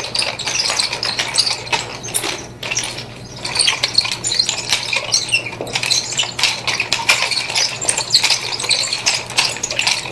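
Wooden nunchaku being twirled in continuous figure eights, its chain links rattling and clicking rapidly, briefly quieter about two and a half seconds in. A steady low hum runs underneath.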